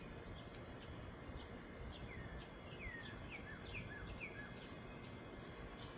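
A songbird calling faintly: a quick series of about eight short whistled notes, each sliding down in pitch, starting about two seconds in and ending past the middle, over a low outdoor background hiss.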